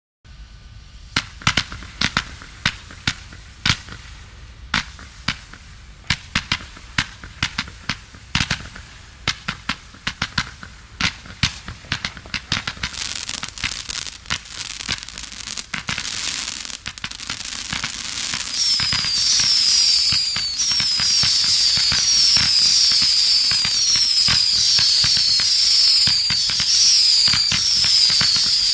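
82-shot firework battery (cake) firing: sharp launch reports about one or two a second, coming faster over time. About two-thirds in it turns into a steady loud barrage with a string of short repeated whistles from its whistle shots.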